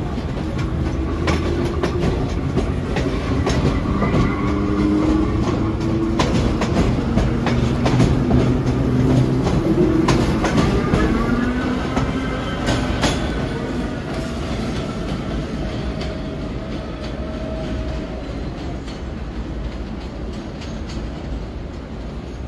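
Vintage BMT Standard subway cars running on the track: wheels click-clacking over rail joints while whining tones rise and fall in pitch. The sound is loudest around the middle and eases off toward the end.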